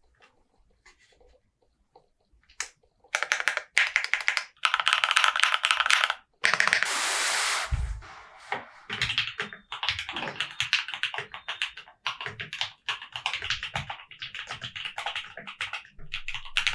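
Mechanical keyboard being typed on: a few light key taps, then fast typing in bursts from about three seconds in. Just past the middle comes a loud rushing noise lasting about a second, ending in a low thump.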